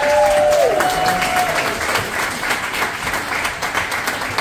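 Audience applauding and clapping steadily. At the start a few voices hold a sung note, which fades out about a second and a half in.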